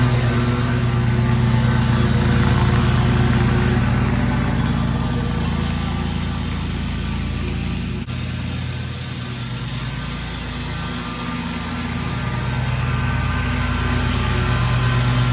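Toro Proline 36-inch walk-behind mower engine running steadily while mowing. It grows quieter from about five seconds in, then louder again near the end.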